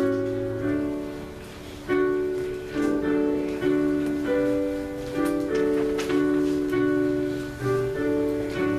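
Piano playing slow chords, a new chord struck about once a second and each one dying away before the next.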